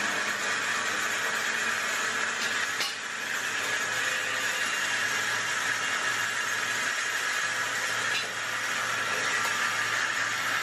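Traub automatic lathe and workshop machinery running: a steady mechanical hiss and whir with a low hum. A brief click and dip in level come about three seconds in and again about eight seconds in.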